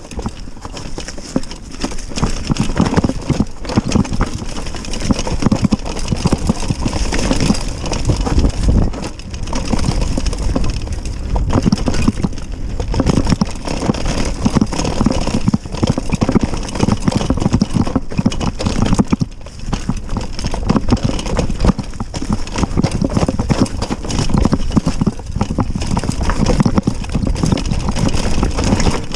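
Mountain bike descending a rough downhill trail: a dense, continuous rattle and clatter of knocks as the tyres, chain and suspension hammer over rocks and roots, easing briefly a few times.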